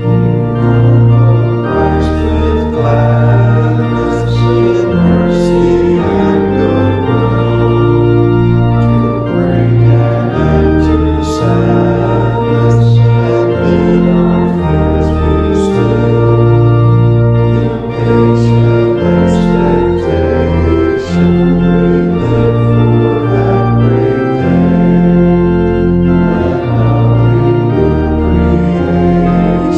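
Church organ playing slow, sustained chords over a bass line that moves every second or two.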